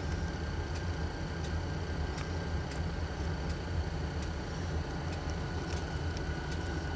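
Parked diesel locomotives idling with a steady low rumble. Faint sharp ticks come every half to three-quarters of a second.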